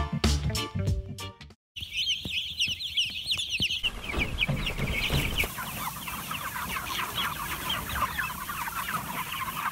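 Music with a steady beat cuts off about a second and a half in; then a flock of broiler chickens calling, many short high calls overlapping.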